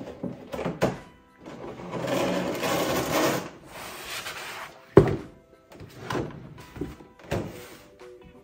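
Cardboard figure box and clear plastic blister packaging being handled: a stretch of rustling and scraping, then a single sharp thunk about five seconds in. Quiet music plays underneath.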